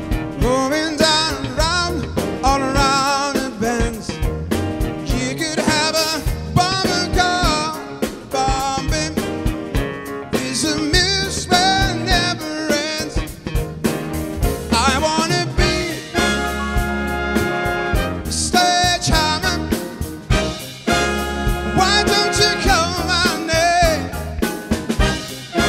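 Live big band playing with a male vocalist singing over it: sung lines with vibrato above a horn section of saxophones, trumpets and trombones, with piano, guitar and drum kit. The horns hold full chords about two-thirds of the way in and again near the end.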